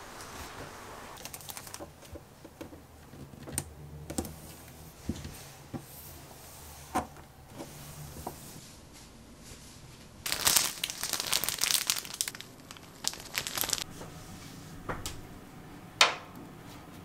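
A paper-like filter sheet and the range hood's metal rectifier plate being handled. Scattered light clicks and knocks, with a few seconds of dense rustling of the sheet about ten seconds in and a sharp click near the end.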